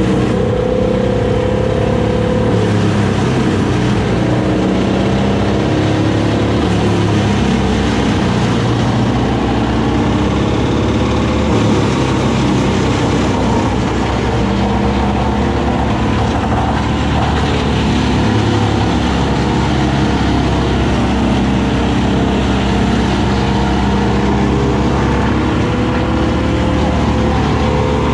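Compact tractor's diesel engine running close up, its revs drifting up and down as it works.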